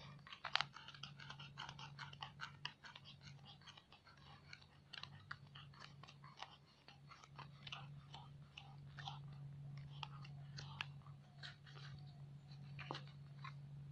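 Faint, irregular ticks and rustles of silk thread being wound round and round a folded piece of cardboard by hand, over a steady low hum.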